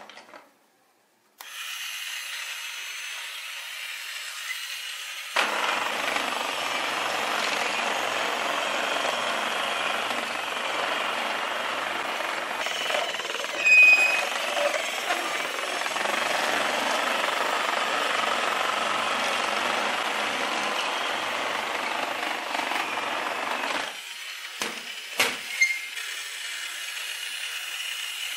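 Small electric motor of a battery-powered building-block toy truck running and turning its plastic gears and wheels: a steady mechanical noise that gets louder about five seconds in and drops back near the end. There is one sharp knock midway and a few clicks after the drop.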